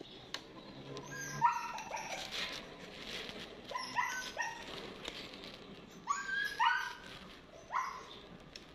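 A dog barking in four short bouts spread a second or two apart.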